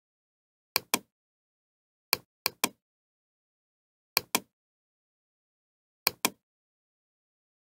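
Computer mouse clicking: four quick groups of two or three sharp clicks, about two seconds apart.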